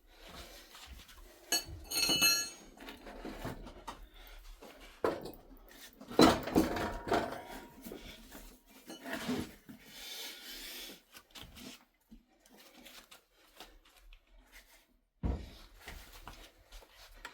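Metal clanks, knocks and scraping from the Harley's rear axle being worked out and the wheel shifted, with one ringing metallic strike about two seconds in and a heavy thump near the end.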